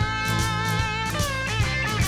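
Blues-rock band music: an electric guitar lick with wavering, bent notes over bass and a drum kit.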